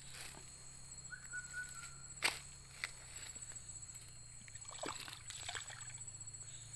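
A hooked snakehead thrashing on a set pole line: several sharp splashes and knocks in the water, the loudest a little over two seconds in, over a steady high chirring of night insects. A brief thin whistle sounds about a second in.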